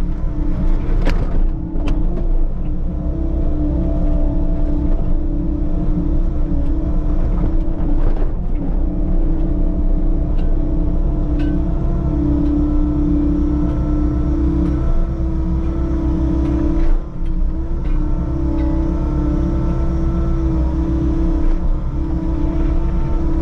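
Compact track loader's diesel engine running steadily under load while grading, with a steady hydraulic whine over it and a few sharp clanks of the machine or bucket.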